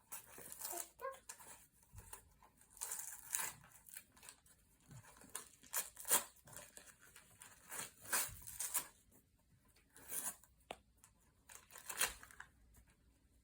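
Paper tearing and rustling in irregular bursts as a gift is unwrapped.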